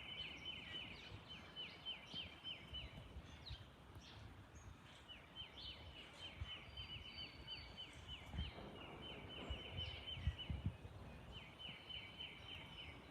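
A small bird's rapid, high trill of repeated chirps, about four a second, in three bouts of a few seconds each, over faint low wind rumble.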